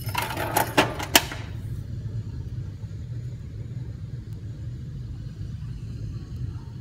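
A plastic jingle ball rattles with a few sharp clicks for the first second or so. A steady low hum runs underneath and carries on alone after that.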